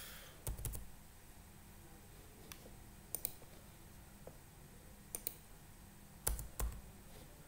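Sparse clicks of a computer mouse and keyboard, some in quick pairs, on a quiet background; the loudest come about six seconds in.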